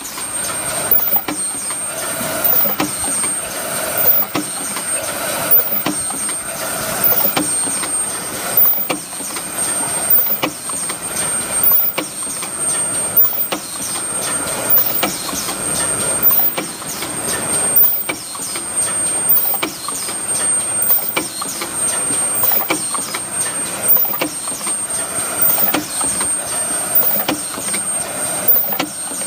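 Calippo paper tube cup forming machine running at production speed: its indexing turret and pneumatic cylinders clatter in a repeating cycle about every one and a half seconds, over a thin steady high whine.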